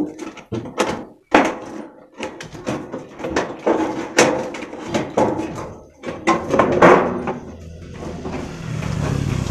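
Aviation tin snips cutting thin sheet-metal gutter stock: a string of sharp, uneven snips and crunches as the blades bite, with the loose sheet rattling and flexing. A low steady rumble sets in near the end.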